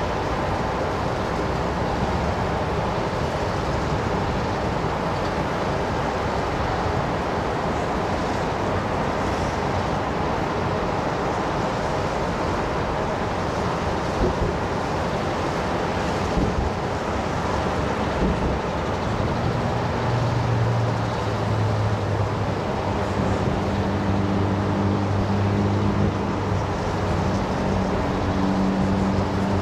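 Steady city traffic noise, with a few faint thumps. About two-thirds of the way in, a low, droning vehicle engine joins.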